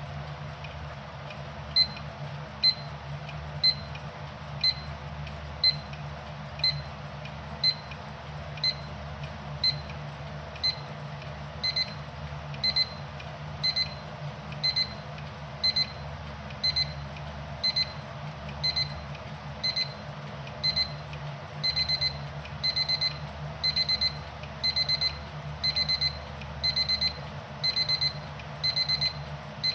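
Lego Darth Maul alarm clock's alarm beeping. It starts as single high beeps about once a second, then changes to quick pairs and finally to rapid groups of three or four beeps, still about once a second.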